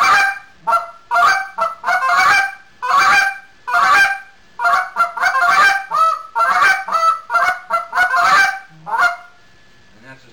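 Goose call blown in rapid triple clucks: a series of quick notes in short groups, each note breaking sharply from a low to a high tone, stopping about nine seconds in.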